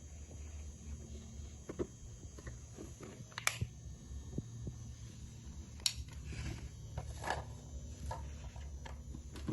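Scattered light clicks and taps of a sewing machine being handled and fiddled with, not running, over a faint low hum.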